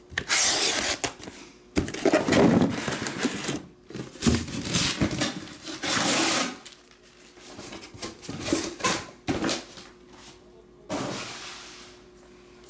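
A cardboard shipping case being opened and shrink-wrapped card boxes slid out of it and stacked on a table: repeated scraping and rustling of cardboard and plastic wrap, with a few light knocks.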